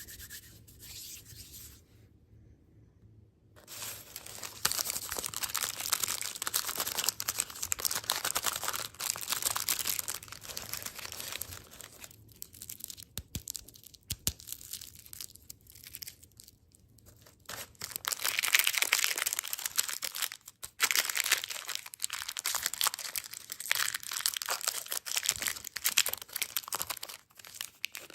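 Candy packaging being crinkled and torn open in close-up, with long stretches of dense crackling and ripping. It starts after a few quiet seconds and eases off briefly around the middle before picking up again.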